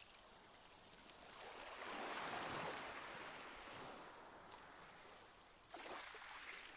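Faint water lapping and sloshing in a sea otter pool, swelling about two seconds in and again suddenly near the end.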